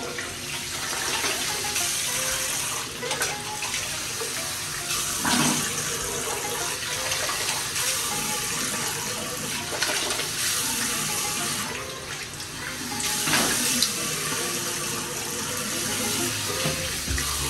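Bathroom sink tap running steadily while water is splashed onto the face, with several louder splashes of rinsing.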